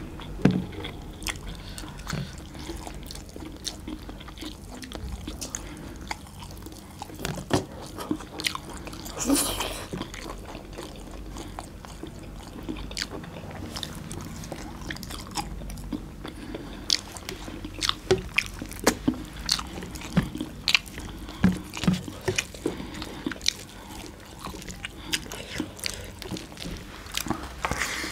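Close-miked eating of mutton curry and rice by hand: chewing, biting and wet mouth sounds, with many short sharp clicks that come more often in the second half.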